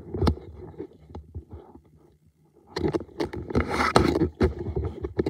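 Handling noise on a phone's microphone as it is moved and repositioned: irregular scraping, rubbing and knocks, with fabric brushing against it. A quieter stretch falls about two seconds in; the densest, loudest rubbing and knocks come after about three seconds.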